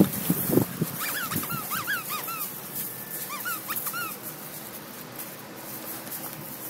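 Pyrenean Mastiff puppies whimpering and yipping while tugging at a plush toy: brief low growling at the start, then two runs of short, high, rising-and-falling whines, about a second in and again around three seconds in.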